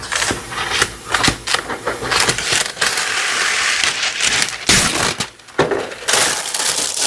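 Parchment paper crinkling and rustling in irregular bursts as it is handled and spread over a baking pan.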